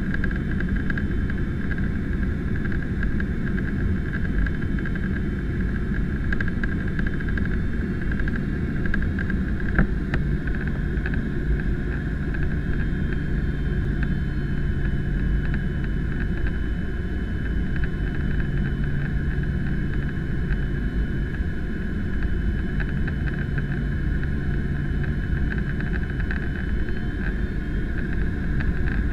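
Steady cabin noise of a Boeing 767-300ER in descent: a constant low rumble of engine and airflow with a steady higher hum over it. A single faint click sounds about ten seconds in.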